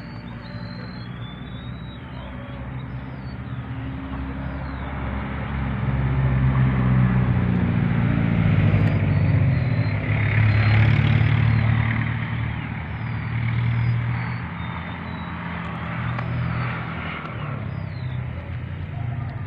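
A motor vehicle's engine running, a low hum that grows louder over several seconds, holds for a while, and then slowly fades.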